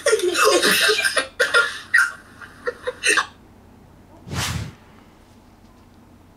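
Two girls shrieking and laughing over a video-chat call, a rapid run of loud outbursts for about three seconds. A single short burst of noise follows about a second later, then it goes quiet.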